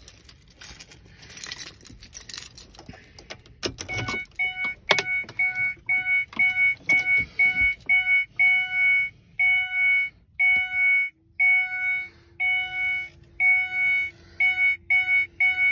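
Keys jangling and clicking, then the Mercury Mariner's dashboard warning chime beeping steadily, about twice a second and a little faster near the end, as the ignition is switched on before cranking. A low steady hum comes in about ten seconds in.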